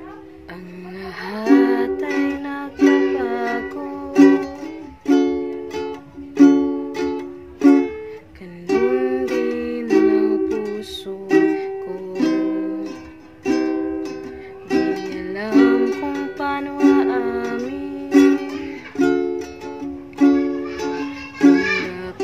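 Ukulele strummed in a steady rhythm, with a strong strum about every second and a half and lighter strums between, moving through a few chords.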